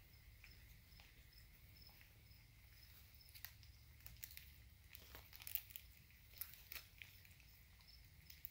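Faint chirping of feeder crickets in a lizard tank, a steady train of evenly spaced high chirps. Soft clicks and crinkles from 3.5-week-old American Bully puppies eating raw ground beef on a puppy pad come in about three seconds in, the loudest a little past halfway.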